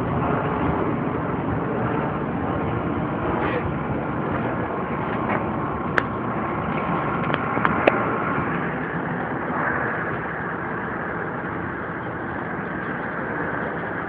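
Steady hum of street traffic, with two sharp clicks about six and eight seconds in.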